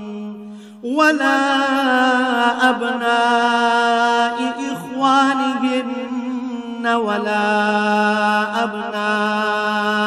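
A male Quran reciter chanting Arabic verses in long, drawn-out melodic phrases. His voice slides up into a new phrase just under a second in, breaks briefly near five seconds, and starts another long held phrase about seven seconds in.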